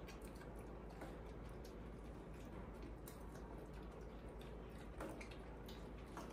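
Faint scattered clicks and small ticks of a spoon in a stainless steel bowl while macaques eat noodles, over low room noise.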